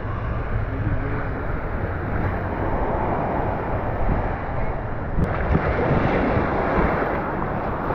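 Small ocean waves washing up on a sandy shore, with wind buffeting the microphone. The wash grows louder and hissier about five seconds in.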